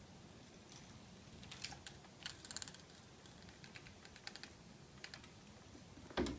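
Light clicking and tapping in several short clusters, like small hard contacts, with one louder thump near the end.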